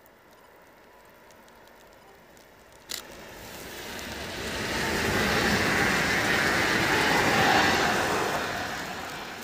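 EN78 electric multiple unit passing at speed. A rushing sound swells to its loudest about seven seconds in, then fades as the train goes away. A single sharp click sounds about three seconds in.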